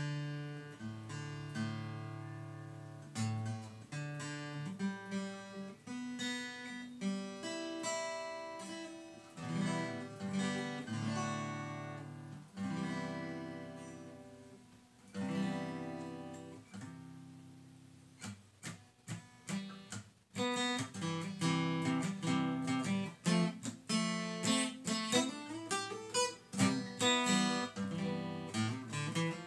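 Acoustic guitar freshly strung with new strings, played: chords and picked notes that ring out and fade, then about two-thirds through a quicker, more rhythmic passage of strumming and picking.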